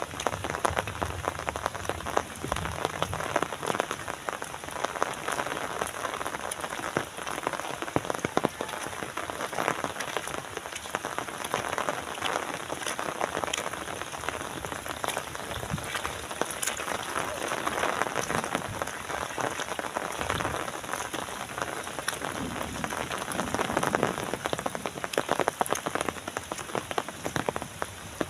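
Steady rain falling, with many close, separate drops pattering on surfaces over an even hiss of rainfall.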